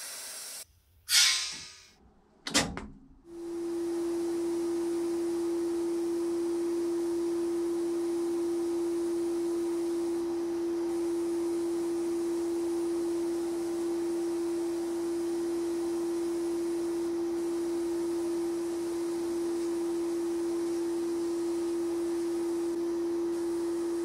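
Abrasive blast gun in a blasting cabinet: two short, loud bursts of blasting about a second and two and a half seconds in, then a long steady hiss of air and grit with a steady pure tone over it.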